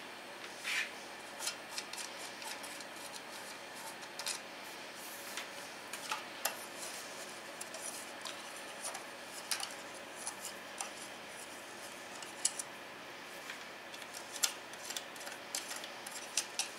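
Small thumb screws being unscrewed by hand from the control board's black cover and set down on the table, giving scattered light clicks and ticks with a little rubbing, over a faint steady hiss.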